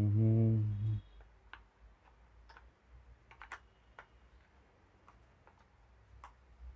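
A man's brief hum in the first second, then scattered light clicks and taps of plastic flash accessories being handled as a magnetic honeycomb grid is fitted onto a speedlite's magnetic holder.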